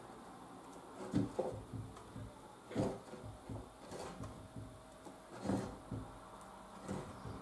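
Wooden nest box being handled and shifted on a workbench: a few scattered soft knocks and scrapes of wood against wood.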